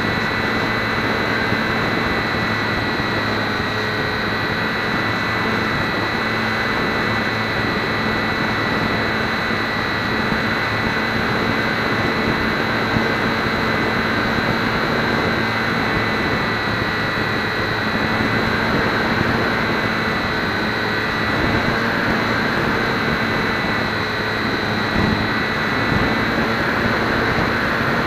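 HobbyZone Champ RC plane's electric motor and propeller running at a steady throttle, picked up by a keychain camera on the plane, with a steady rush of air over the microphone.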